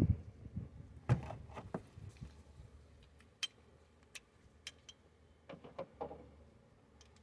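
Hand tools and parts being handled while working on a truck engine: a dull knock at the start and another about a second in, then scattered sharp metallic clicks and light taps.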